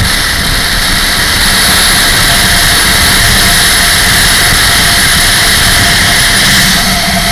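Motorcycle underway at road speed: a loud, steady rush of wind over the microphone with the engine running underneath.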